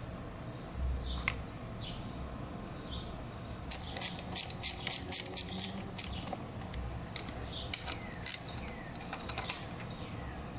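Ratchet wrench clicking as bolts are run down on a dirt bike engine being reassembled: a quick run of about eight sharp clicks around four to five seconds in, then scattered single clicks.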